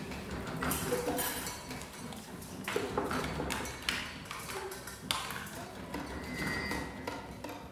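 Sparse, irregular taps, clicks and light pings from small objects and drinking glasses being handled and struck, played as sounds in an ensemble piece.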